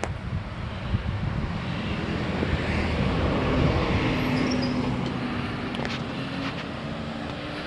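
A motor vehicle passing, its engine sound swelling to its loudest about four seconds in and then fading.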